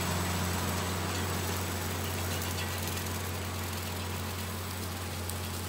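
Farmall 1066 tractor's six-cylinder diesel engine running steadily while it pulls a rotary cutter through the grass, growing slightly fainter as it moves away.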